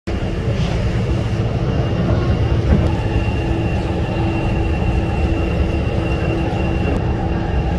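Taipei Metro train running: a steady low rumble with a constant high whine.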